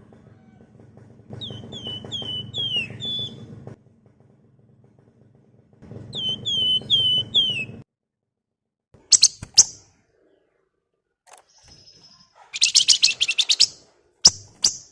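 A flock of wergan Jawa (flamboyan) birds calling. Two runs of about five quick down-slurred whistles are followed, from about nine seconds in, by short bursts of shrill, rapid chattering.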